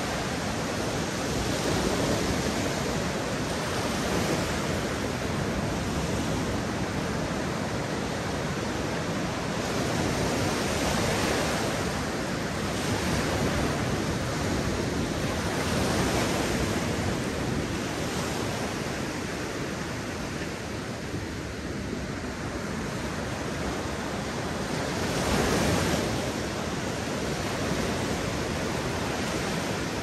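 Sea waves breaking and washing up a beach: a continuous rush of surf that swells every few seconds, with the biggest surge a few seconds before the end.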